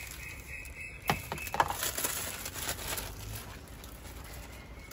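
Ice clinking against a metal ladle and a plastic bag crinkling as an iced drink is ladled into a bag, with two sharp clinks about a second in followed by rustling.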